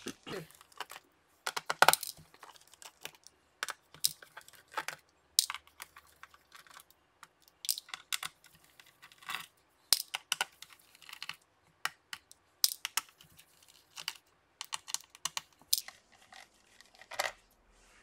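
Irregular small clicks and taps from a small screwdriver backing screws out of a laptop's bottom cover, with the tiny screws and tool being handled and set down.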